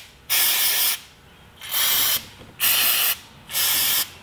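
Aerosol can of brake cleaner sprayed in four short hissing bursts, each about half a second long, into the threaded lug bolt holes of a wheel hub to flush out dirt and anti-seize.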